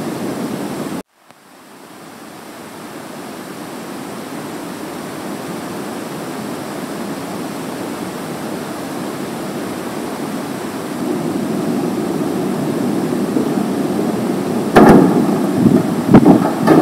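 A steady rushing hiss that cuts out suddenly about a second in, then fades back up and grows a little louder. Near the end come a few knocks and clunks as a room door is opened.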